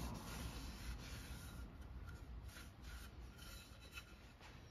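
Tack cloth wiping over the surface of a carved oak sign: a faint, soft rubbing that eases off after about two seconds.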